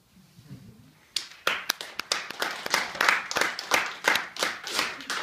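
A small audience clapping at the end of a talk, starting about a second in with one sharp clap and quickly filling out into steady applause of distinct, separate claps.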